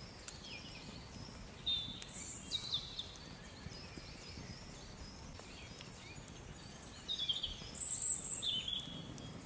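Songbirds singing a dawn chorus: many short, high chirping and warbling phrases, busiest and loudest near the end, with faint crackling from the campfire underneath.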